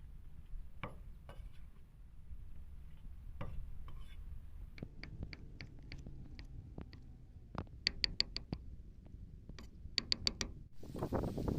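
Scattered light knocks and taps of handling during food preparation, with a quick run of about five sharp clicks about eight seconds in and another of about four clicks about ten seconds in. Near the end a steady background hiss comes in abruptly.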